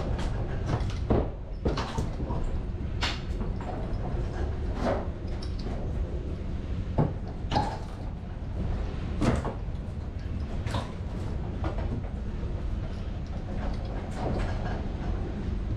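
Scattered knocks and clunks, about a dozen at irregular intervals, over a steady low rumble.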